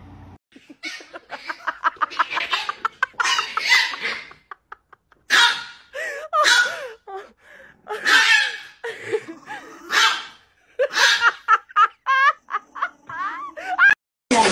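A person laughing hard in repeated bursts, followed by more short vocal bursts and, near the end, a run of quick rising-and-falling calls.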